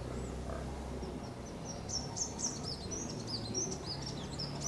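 Sunbird twittering: a quick run of high, thin chirps that starts about a second in, over steady low background noise.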